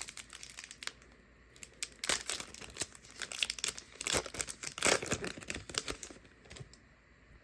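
Trading card pack wrappers crinkling and cards rustling as they are handled, in irregular crackly bursts that are busiest from about two to six seconds in and die away near the end.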